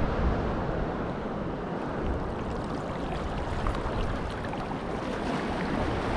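Wind rumbling on the microphone over sea water lapping at the shore, a steady rushing noise with faint scattered ticks of water.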